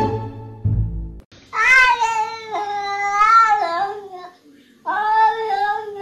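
Two long, wavering meows from a Scottish Fold cat. The first lasts about two and a half seconds, and the second starts near the end. Before them, a short stretch of plucked-string music cuts off about a second in.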